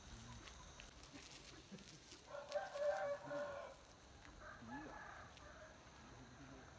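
A rooster crows once, starting about two seconds in and lasting about a second and a half; a fainter, shorter call follows about a second later.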